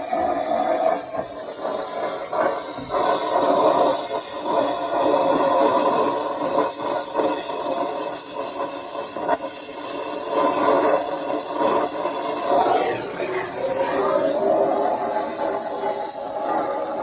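Oxy-fuel brazing torch flame hissing steadily while copper refrigerant lines are soldered at an AC coil, with scattered light clicks and scrapes.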